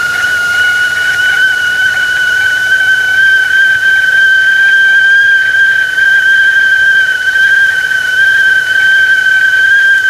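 Tea kettle whistling at the boil: one loud, steady whistle whose pitch creeps slightly upward, with a hiss of steam underneath.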